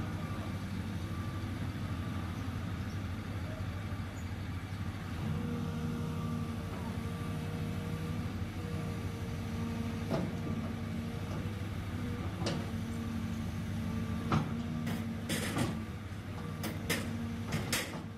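Cat 320C hydraulic excavator's diesel engine running steadily while the machine swings its boom. Over the second half come a series of sharp knocks, bunched together near the end.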